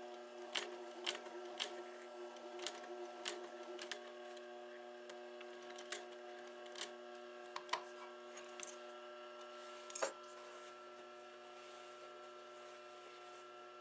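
Industrial sewing machine stitching leather slowly: sharp irregular clicks of single stitches over the steady hum of its motor. The stitching stops after a last loud click about ten seconds in, leaving only the hum.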